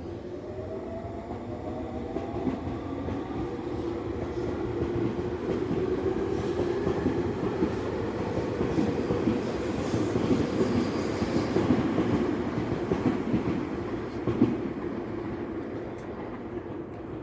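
A Tobu Tojo Line electric train passing close by, wheels running on the rails. A rising electric whine is heard in the first few seconds, the train grows loudest past the middle, then fades away, with one sharp knock near the end.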